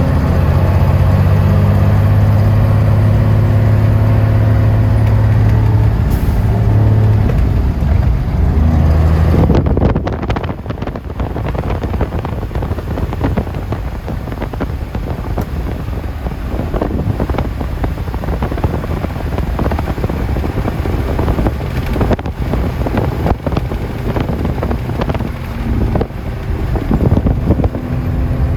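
Cabover semi truck's Cummins diesel engine running with a steady low drone; about ten seconds in the drone drops back and rougher road and wind noise takes over.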